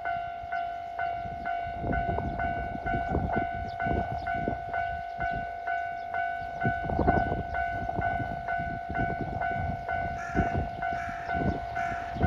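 Japanese level crossing warning bell ringing steadily about twice a second, while a train runs past over the rails from about two seconds in, with an uneven low rumble and wheel clatter.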